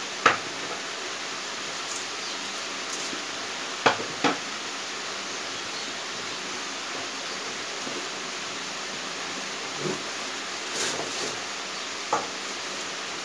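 Chaoba 2800 hair dryer running with a steady airflow hiss, with a few short clicks or knocks over it.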